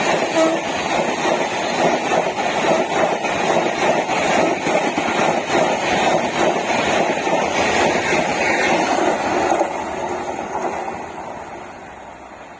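Indian Railways train passing at speed: the end of a horn blast about half a second in, then the loud rush and clatter of wheels over the rails, dropping off about ten seconds in and fading as the train moves away.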